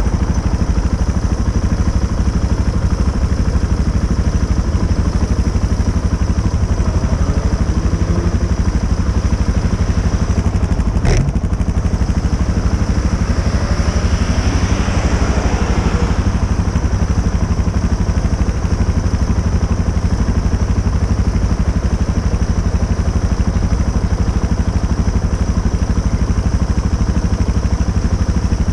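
Motorcycle engine idling steadily, with a single sharp click about eleven seconds in.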